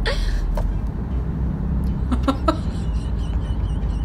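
Steady low road rumble inside a moving car, with a few faint short sounds about two seconds in.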